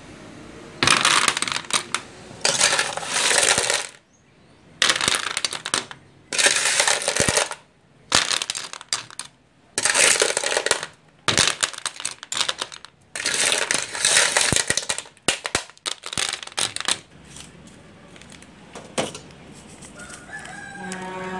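Small clam shells clattering and clinking against a metal ladle and aluminium pot as they are scooped, in repeated bursts about a second long that stop near the end.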